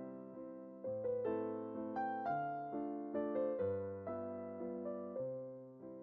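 Background music: a gentle solo piano piece, single notes struck over held chords and left to fade.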